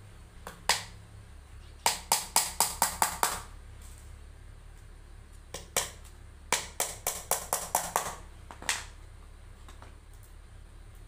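Small hammer tapping small nails into a wooden box covered with an embossed sheet: two quick runs of light, sharp taps, one about two seconds in and a longer one from the middle on, with a few single taps before them.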